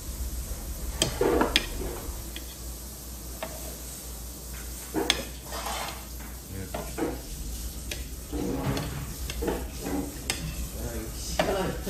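Metal tongs clicking and tapping against a ceramic plate and a plastic cutting board as slices of Spam are picked up and laid down, a few scattered knocks with the sharpest about five seconds in.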